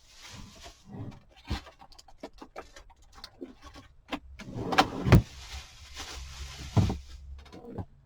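Craft supplies being handled on a work table: scattered clicks, taps and light rustling, with a couple of louder knocks about five seconds in and another near seven seconds.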